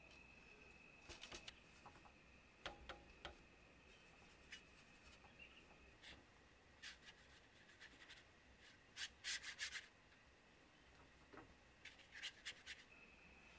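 Faint close brushing sounds of a watercolour paintbrush: short scratchy strokes and rubs of the bristles on paper and in the metal paint tin, in a few small clusters, the loudest run a little after the middle.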